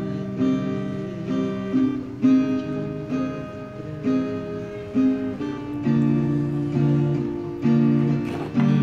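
Background music: an acoustic guitar playing chords struck about twice a second, shifting to lower notes about halfway through.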